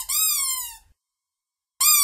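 Rubber chicken toy squeezed to let out a squeal that rises and then sinks in pitch over nearly a second; a second squeal starts near the end.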